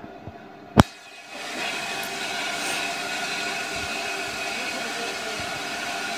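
A single sharp click just under a second in, then a small steam tank locomotive and its coach running steadily past, a continuous rumbling noise with faint steady tones in it.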